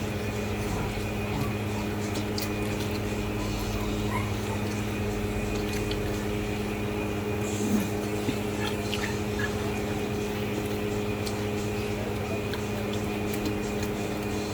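Steady hum of a running fan or similar household appliance, with faint scattered mouth clicks and chewing sounds from a person eating. One sharper click stands out about eight seconds in.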